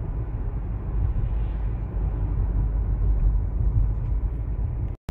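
Steady low rumble of road and engine noise heard inside a moving car's cabin, cutting out for an instant near the end.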